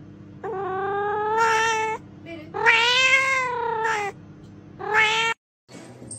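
Domestic cat meowing loudly three times in long, drawn-out calls: the first two last about a second and a half each, the second rising and then falling in pitch, and the third is short. A low steady hum runs under the calls.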